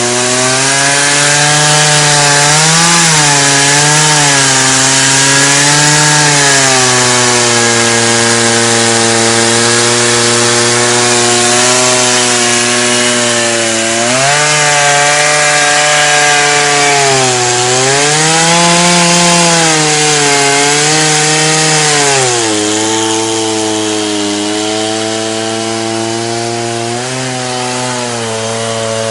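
Chainsaw running under load while ripping a log lengthwise into a plank. The engine note sags and recovers several times as the cut bogs down and frees up, over the steady hiss of the chain cutting wood.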